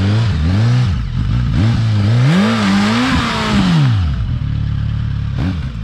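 Suzuki motorcycle engine revved while standing still: a few quick blips up and down, then a longer rev about two seconds in that sinks back to idle near four seconds. A single sharp crack comes near the end.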